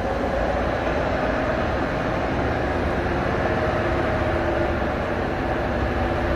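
Metro train noise: a steady rumble with a few held, slightly shifting hum tones, heard inside a carriage standing at a station platform with its doors open.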